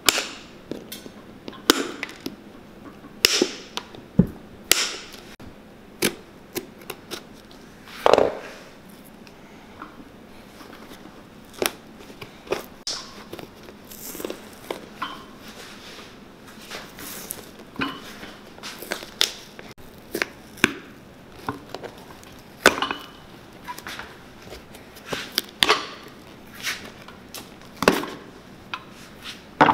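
Metal pincers clicking and snapping as they pull nails from a cowboy boot's leather-board heel and pry the worn sole away, the old leather and leather board cracking and tearing as it comes off. The sharp clicks and snaps come irregularly, about one every second or so.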